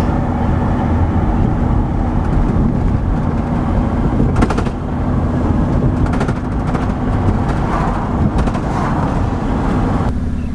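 Steady road and engine noise inside a moving car, with a few brief knocks partway through.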